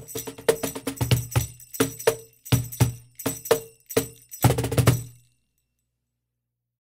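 Meinl cajon played by hand, deep bass strokes and sharp slaps, with a Meinl FJS2S-BK foot tambourine jingling on the beat. The groove ends in a quick flurry of strokes and stops about five seconds in.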